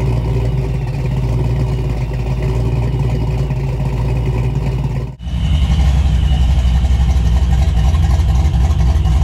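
Fox-body Ford Mustang GT's 5.0 V8 idling steadily through tailpipes. After a cut about five seconds in, the same engine idles through turndown exhaust dumps, louder and with a heavier, choppier low rumble.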